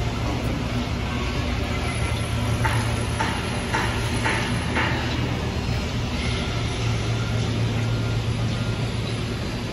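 Construction-site noise: a steady low hum of heavy machinery running, with a run of about five sharp knocks roughly half a second apart around the middle.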